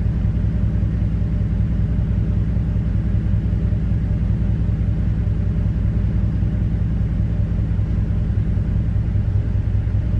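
2012 Ram 1500's 5.7-litre Hemi V8 idling steadily, heard from inside the cab.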